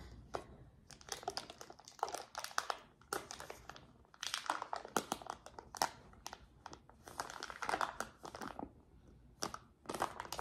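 Foil wrapper of a block of cream cheese crinkling and crackling as it is peeled open by hand, in several irregular bursts.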